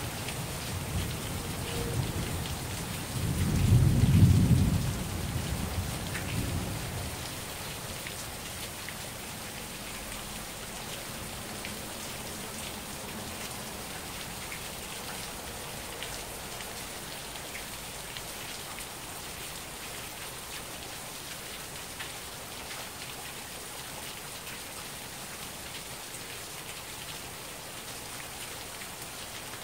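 Thunder rumbles in the first seconds, loudest about four seconds in, then dies away by about seven seconds. Underneath, heavy rain falls steadily with scattered drops pattering close by.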